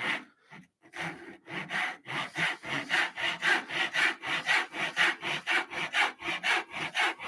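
Hand backsaw cutting across the grain along a tenon's shoulder line in a wooden workpiece, in short quick strokes about three a second after a brief pause near the start.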